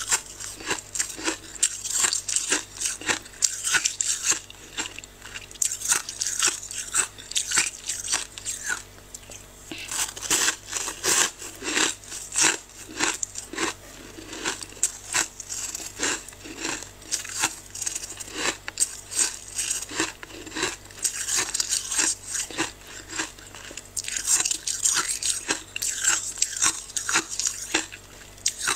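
Freezer frost crunching in a dense, uneven run of crisp crackles.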